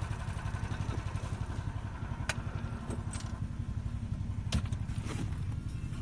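Car engine idling with a low, quickly pulsing rumble, heard from inside the vehicle, while it is warmed up on a winter night. A few sharp clicks sound over it, about two seconds in and twice near the end.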